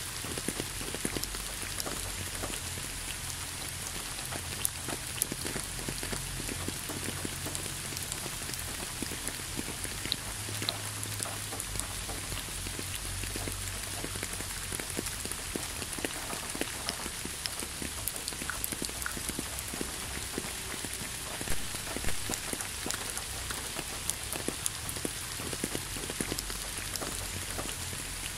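Steady rain falling, with many separate close raindrops ticking among the even hiss.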